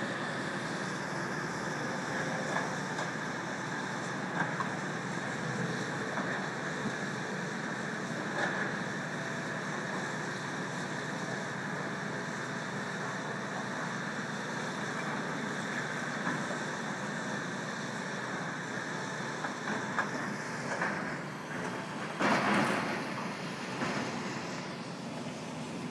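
Steady drone of tracked excavators' diesel engines working, mixed with road traffic, with a louder rush of noise near the end.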